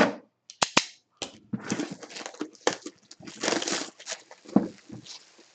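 A sealed trading-memorabilia box being torn open by hand. Two sharp pops of the seals come a little under a second in, followed by bursts of rustling and tearing packaging.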